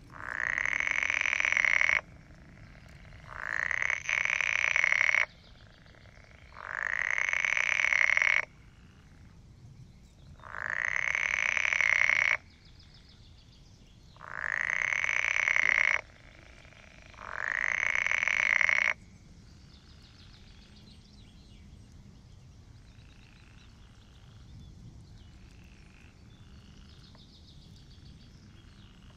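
Green frog (European water frog) calling from the pond: six long croaking calls of about two seconds each, a few seconds apart, each swelling in loudness and stopping abruptly. After the sixth call, only faint background remains.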